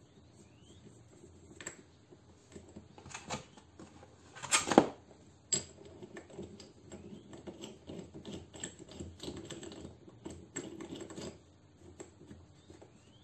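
Clicking and clattering of metal tools and parts being handled on an air-conditioning compressor. There is a louder clank about four and a half seconds in, then a run of quick small clicks and rattles that stops near the end.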